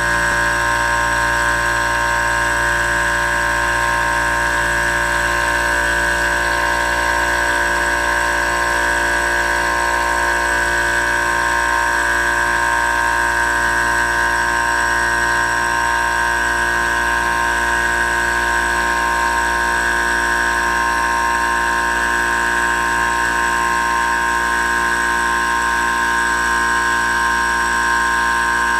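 CNC milling machine cutting grooves into a metal shaft held on a rotary axis: a steady, unchanging high whine of several tones over a low machine hum.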